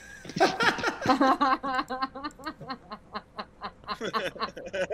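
A person laughing in a long run of short pitched pulses, about four or five a second, fading out near the end.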